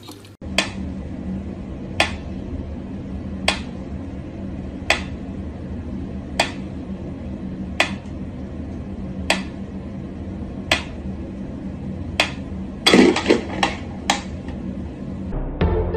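Pyramid-shaped mechanical metronome ticking slowly and evenly, one sharp click about every second and a half. A brief burst of louder clatter comes about three-quarters of the way through.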